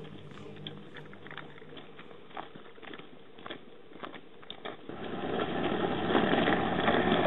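Scattered clicks and taps, then a louder steady engine noise that swells up about five seconds in.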